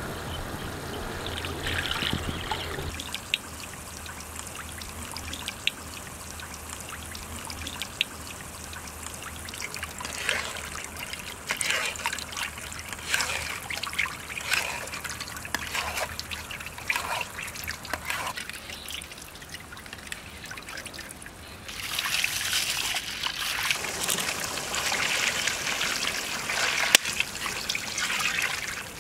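Tamarind juice being poured in a thin stream into a large pan of hot curry, trickling and splashing into the liquid. The pouring gets heavier and louder about three quarters of the way through.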